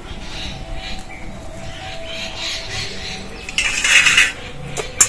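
Stainless-steel bowls and utensils clinking and scraping as chopped onions are handled in a steel bowl, with a louder rattling rush lasting under a second about three and a half seconds in and a sharp clink near the end.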